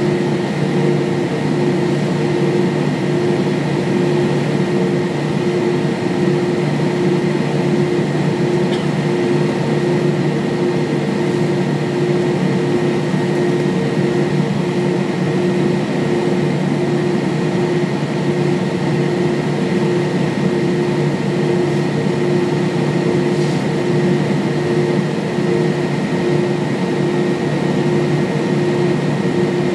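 Steady cabin noise inside an Airbus A320-232 on the ground: the IAE V2500 engines at idle and the air-conditioning running, a constant hum with a few steady tones over it.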